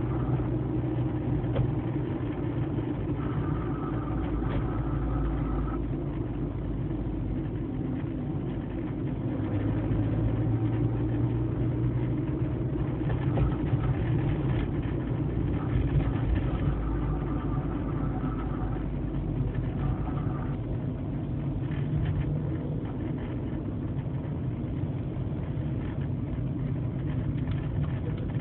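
Fiat Palio ELX 1.4 running, a steady rumble with a higher tone that comes and goes several times. The owner traces this strange noise to the front passenger-side wheel, and its cause is unknown.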